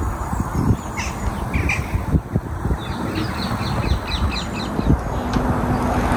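Wild birds calling outdoors, including a quick run of short high calls about three seconds in, over a gusty low rumble of wind on the microphone.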